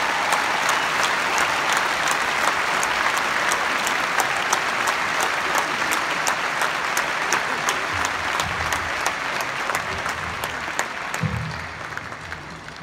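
Large arena crowd applauding and cheering, swelling up at the start and dying away near the end. A steady beat of sharp ticks, about three a second, runs through the applause.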